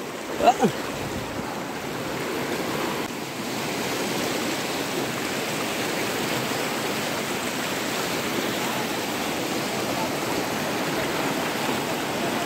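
A fast, muddy river rushing over and around rocks: a steady, even rush of water.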